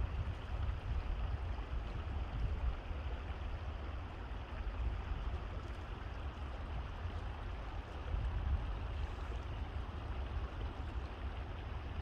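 Water of a small stream flowing, a steady rushing with a constant low rumble underneath.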